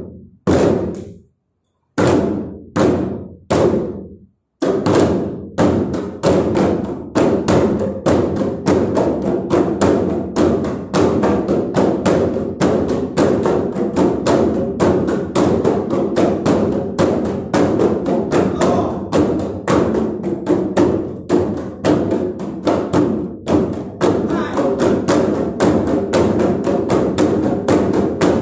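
A group of Malay gendang hand drums struck by hand together. There are a few separate strokes with short pauses at first, then from about five seconds in a steady ensemble rhythm of about four beats a second.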